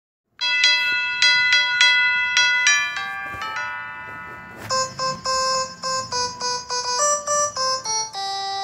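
Intro music of bright, bell-like keyboard notes: a chord struck over and over, a falling run of notes about three seconds in, then a quick melody of short notes that ends on a held lower note.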